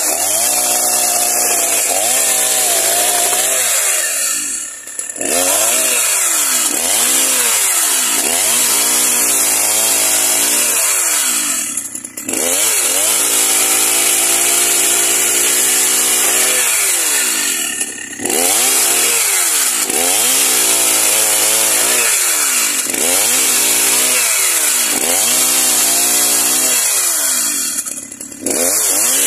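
Two-stroke chainsaw at high revs ripping boards lengthwise. The engine pitch rises and falls about once a second as the chain bites into and clears the wood. The revs drop briefly four times.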